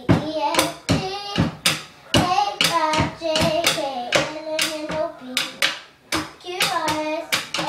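A young girl singing a song while a boy beats an uneven rhythm with drumsticks on the top of a wooden cabinet, used as a makeshift drum.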